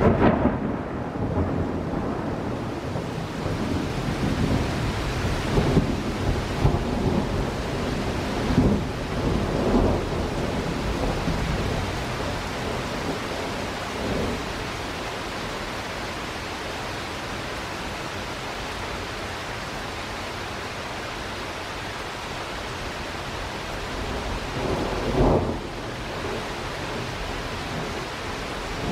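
Steady heavy rain with rolling thunder: several low rumbles swell and fade in the first ten seconds, a short one comes about halfway, and a sharper one comes near the end.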